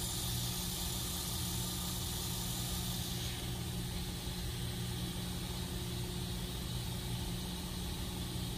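2x72 belt grinder running steadily with a 50-grit belt on the platen, its motor hum under a constant hiss as mammoth ivory is ground flat against it.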